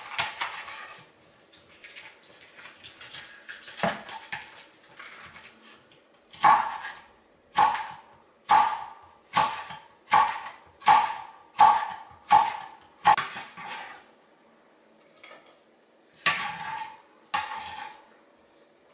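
Chef's knife slicing a red bell pepper into strips on a wooden cutting board, each stroke ending in a sharp knock on the board. A run of about nine even strokes comes a little under one a second, then two more knocks follow near the end.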